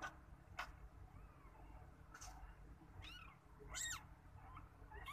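Newborn kitten mewing: three or four short, thin, high-pitched squeaks that rise and fall in pitch, the loudest a little before four seconds in. Two short clicks near the start.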